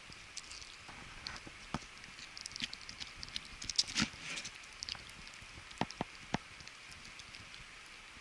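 Yorkshire terrier puppy gnawing a chew bone: irregular clicks and scrapes of teeth on the bone, coming thickest a few seconds in, with a few sharp clicks later. The puppy is teething.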